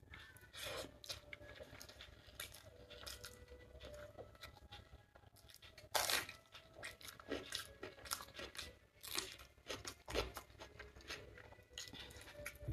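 Chewing and mouth sounds of a person eating chicken biryani by hand: a run of short clicks, smacks and crunches, the loudest about six seconds in as another handful goes into the mouth.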